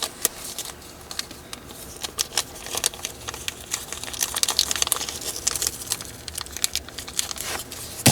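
Rustling and small irregular clicks of hands handling a packet of small metal washers, picking out the smaller ones to try.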